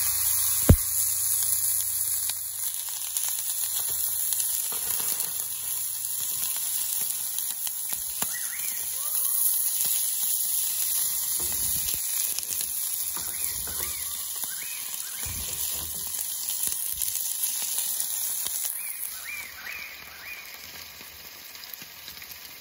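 Steak and broccolini sizzling in hot oil and butter in a frying pan on a portable gas stove, a steady high hiss. A single sharp knock sounds just after the start. The sizzling cuts off near the end.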